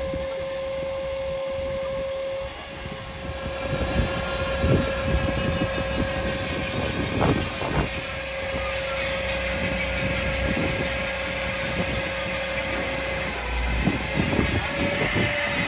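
Truck-mounted Palfinger knuckle-boom crane's hydraulics running with a steady whine that dips and rises again near the end as the load changes, with a few metallic clanks from the signal mast being lifted.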